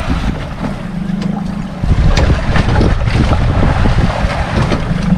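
Wind buffeting the microphone and water splashing against a small boat's hull, loudest from about two seconds in, over a steady low hum.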